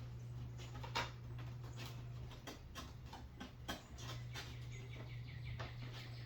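Foam airframe parts of an RC jet squeaking and clicking as a wing is pushed and wiggled onto its spar, with one sharp click about a second in. A steady low hum runs underneath.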